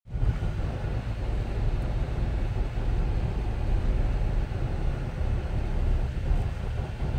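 Jeep Wrangler JK driving on snowy roads, heard from inside the cabin: a steady low rumble of engine and tyres with road noise over it.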